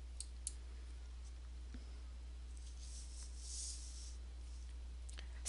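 Low room tone: a steady low electrical hum with faint hiss, and a couple of faint clicks in the first half-second.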